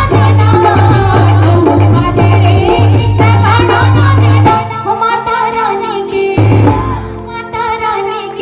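Live folk music: a woman singing into a microphone over a band of keyboard, dholak and hand percussion with a heavy bass line. About halfway through, the bass and full band drop out to a lighter accompaniment, coming back briefly about a second later.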